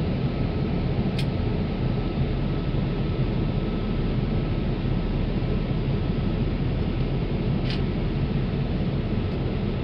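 Steady cabin noise inside a Boeing 787 airliner: an even low rush with a faint steady tone, broken twice by a brief tick, about a second in and near eight seconds.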